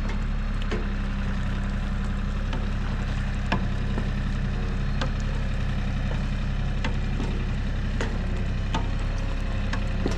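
An engine idling steadily with a low, even hum, with scattered sharp clicks over it.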